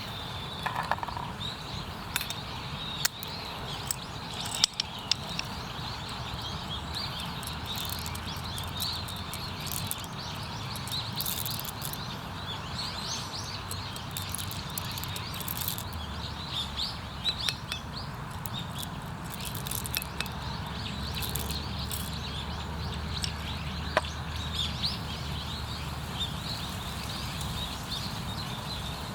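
Small birds chirping and twittering repeatedly over a steady outdoor background, with scattered sharp clicks.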